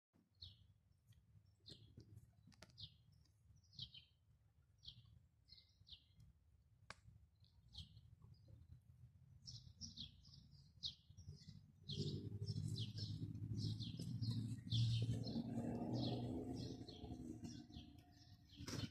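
Small birds chirping, short high calls repeated about once a second at first and coming faster past the middle. From about twelve seconds a low rumbling noise joins in and stays to near the end.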